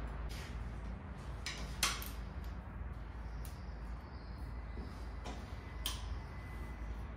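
About half a dozen sharp metallic clicks of a socket wrench on the connecting-rod bolts of a Toyota 2TR-FE engine as they are angle-tightened a further 90 degrees, the loudest about two seconds in, over a steady low hum.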